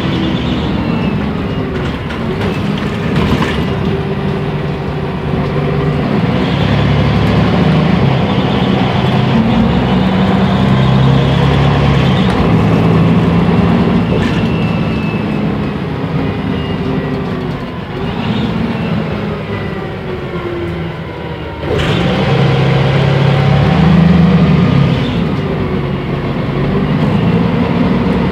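Mercedes-Benz O345 Conecto city bus's diesel engine and Voith automatic transmission heard from inside the cabin while driving, the engine note rising and falling. About three-quarters of the way through, the sound drops and falls in pitch for a few seconds, then the engine picks up again abruptly.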